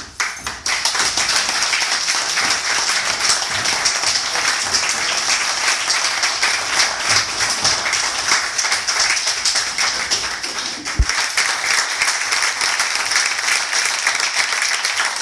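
A small group applauding, clapping that starts suddenly and keeps up steadily. There is one dull thump about eleven seconds in.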